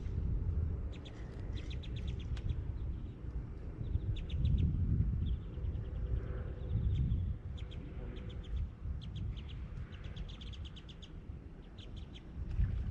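A bird calling in repeated short, rapid chattering trills, over an uneven low rumble.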